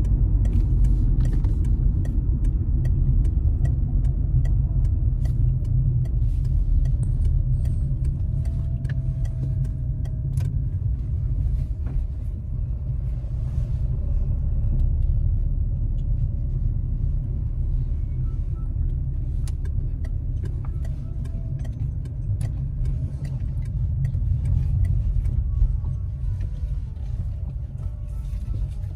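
A car driving, with a steady low rumble of engine and road noise and faint scattered ticks over it.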